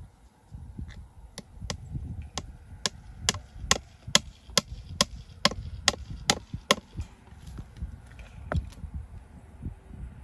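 Hammer blows on a wooden fence post, driving staples to fasten the wire: a steady run of about fifteen sharp strikes, two or three a second, then a single blow near the end.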